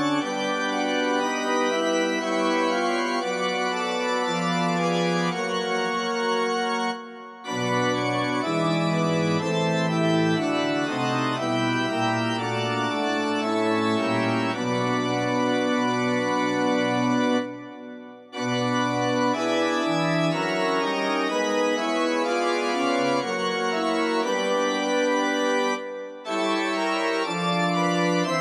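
Background organ music playing slow, held chords, with brief breaks about three times.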